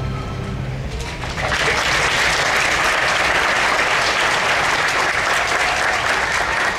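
Audience applauding in a hall at the end of a musical number, rising to full strength about a second and a half in as the last held note of the accompaniment fades.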